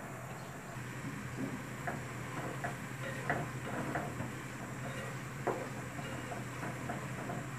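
A spatula clicking and knocking against an aluminium karahi while stirring a thick, simmering curry as it is cooked down, in irregular taps with a louder knock about three seconds in and another about five and a half seconds in, over a steady low hum.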